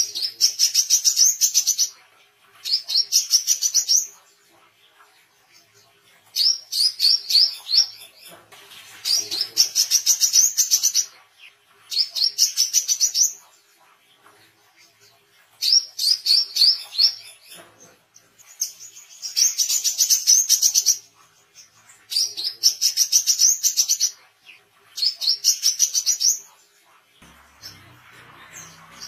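Male brown-throated sunbird (wiceh, kolibri kelapa) singing its 'beset' song. It gives bursts of rapid, high repeated notes, each one to two seconds long, with short pauses between them, about nine times in a row.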